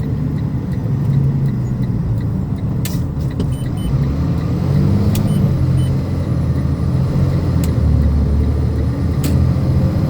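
Freightliner sander dump truck's diesel engine running while driving, heard from inside the cab: a steady low rumble that rises and falls a little in pitch, with a few faint clicks.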